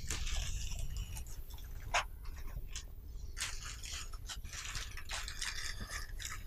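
A clear plastic bag crinkling and rustling, with packing foam scraping, as an electronic unit is lifted out of its packaging. The handling noise is irregular, broken by small clicks and crackles.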